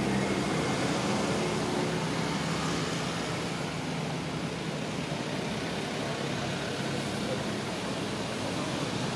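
Steady background hiss and rumble with a low hum that fades over the first couple of seconds, like distant road traffic.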